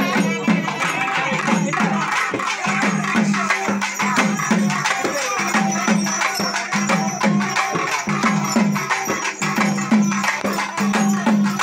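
Procession band of rope-laced barrel drums played in a fast, steady rhythm, with about two deep strokes a second that each slide down in pitch, and sharp stick clicks over them.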